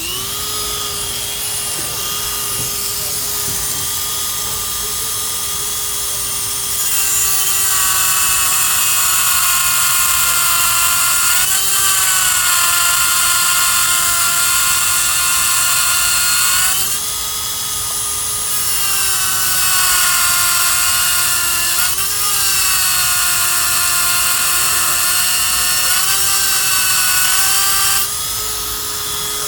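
Small high-speed electric grinding tool whining steadily, grinding the head off a chainsaw chain's top rivet so the link can be punched out. Twice it bears in for about ten seconds, getting louder and hissier with the pitch sagging under load, then the motor is switched off and winds down at the end.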